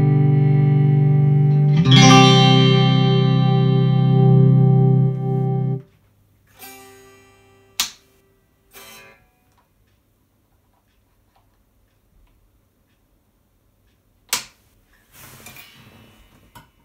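Electric guitar played through a Matchless HC-30 valve amp head and ES/D speaker cabinet. A ringing chord gives way to a second chord struck about two seconds in, which rings until it is muted about six seconds in. After that come a few sharp clicks and faint handling noises.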